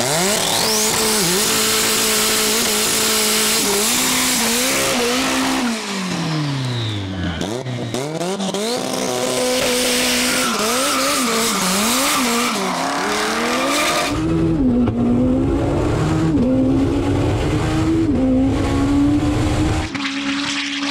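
Turbocharged Honda S2000 race car's four-cylinder engine accelerating hard on a half-mile run, its note climbing and dropping again and again as it goes through the gears.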